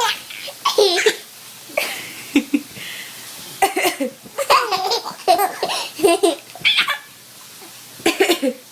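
A baby girl laughing in a string of short fits of belly laughter with brief pauses between them. The laughter is her reaction to someone's coughing.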